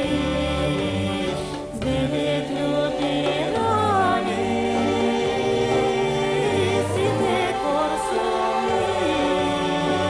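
North Bulgarian folk song: sung, ornamented melody lines with voices joining in chorus, over an accompaniment whose low bass notes change about once a second.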